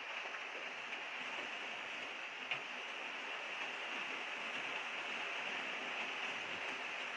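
Steady low hiss of recording noise and room tone, with one faint short click about two and a half seconds in.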